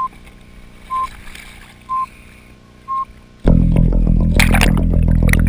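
Four short electronic beeps at one pitch, evenly spaced a second apart, then loud rock music with electric guitar, bass and drums starts abruptly about three and a half seconds in.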